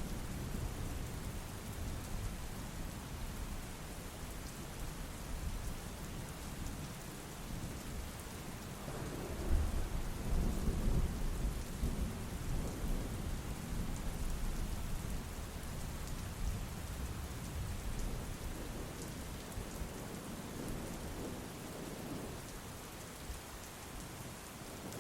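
Steady rain with rolling thunder, a louder rumble swelling about nine to ten seconds in.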